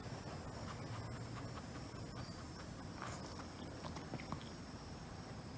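A Shih Tzu sniffing and shifting on a tile floor: a few faint, soft ticks and sniffs over quiet room tone with a faint steady high whine.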